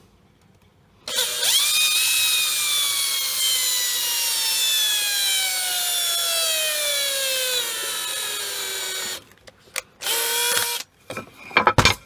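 Electric drill boring a small bit into a wooden block, its motor whine falling steadily in pitch over about seven seconds as it slows. It stops, runs again for under a second, and a few sharp knocks follow near the end.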